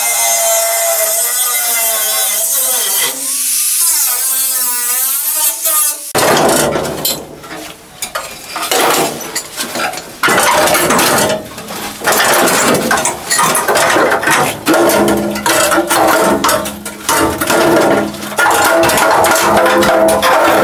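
A cut-off wheel cuts through the rusted sheet-steel floor pan. Its whine rises and falls in pitch under load for about six seconds, then stops. After that comes a long run of irregular clanks and scrapes as loose pieces of sheet-metal floor are pulled out and handled.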